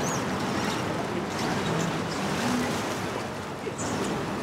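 Steady outdoor background din, an even rush of noise with scattered faint voices of people in a crowd.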